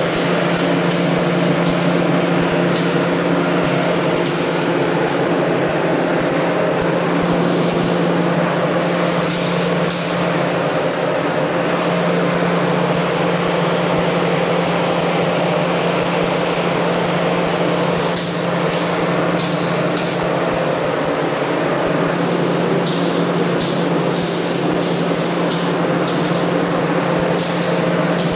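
Compressed-air spray gun spraying paint onto motorcycle parts, with short sharp hisses as the trigger is pulled: a few early on, a pair about a third of the way in, and a quick run of them in the last few seconds. A steady motor hum and air noise run underneath.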